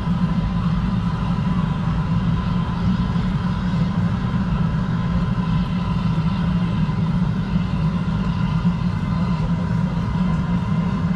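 Steady low mechanical hum of running machinery, with a thin steady high tone above it.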